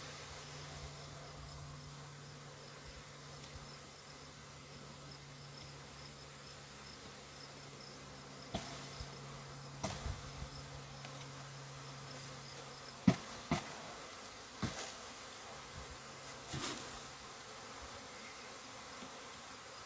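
Honey bee swarm buzzing steadily, the hum fading about two-thirds of the way through. A few sharp knocks come in the second half.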